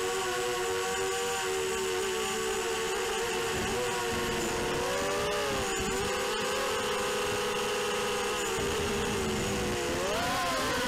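ZMR180 racing quadcopter's brushless motors and propellers whining as it flies, recorded by its onboard camera. The pitch holds steady, then rises and dips with throttle changes about halfway through and again near the end.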